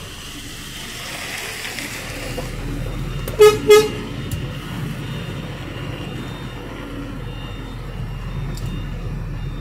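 Two quick toots of a vehicle horn about three and a half seconds in, over the steady low rumble of a truck engine running.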